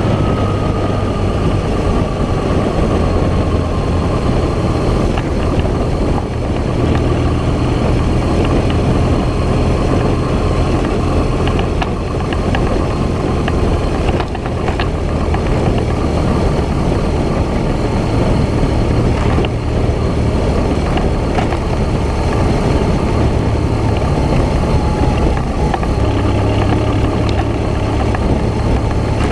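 Steady low rumble and road noise of a vehicle travelling along a rough rural track, with small knocks from the bumpy surface.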